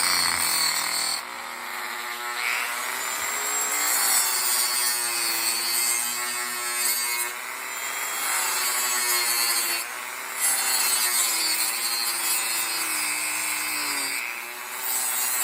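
Small handheld power tool, likely a rotary cutter, cutting into a pinewood derby car's wood block. Its motor runs steadily and its pitch sags and recovers several times as it bites into the wood.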